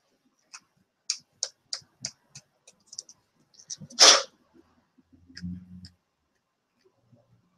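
A run of light, sharp clicks, about three a second, then one short, loud burst of hiss about four seconds in, and a brief low hum a second later.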